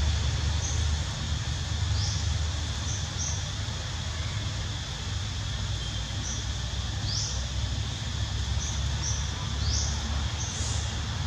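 Outdoor ambience: a steady high-pitched drone over a low rumble, with a short rising chirp every few seconds and fainter high blips in between.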